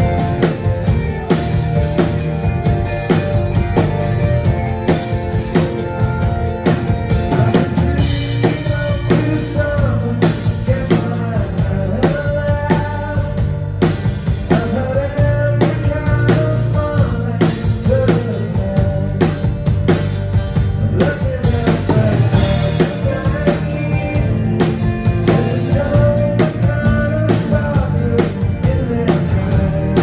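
Live rock band playing a song: drum kit keeping a steady beat under guitars, bass and keyboards, with a singer's voice.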